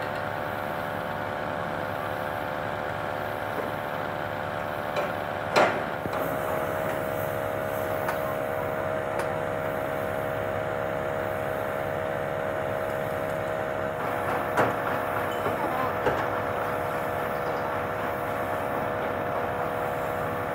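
An engine running steadily, with a few sharp knocks: one loud knock about five and a half seconds in and a few smaller ones around fourteen to sixteen seconds.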